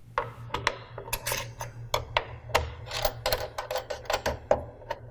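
Irregular sharp clicks and light rattles, several a second, from small plastic and metal humidifier parts being handled as the water feed tube is fitted back on, over a steady low hum.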